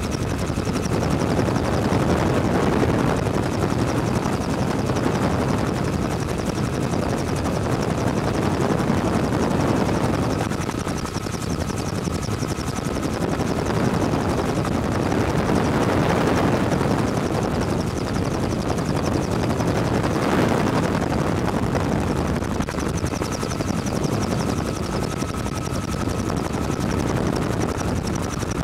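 Bell 47 helicopter's piston engine and rotor running steadily in flight, heard from on board as a loud, even rush of noise.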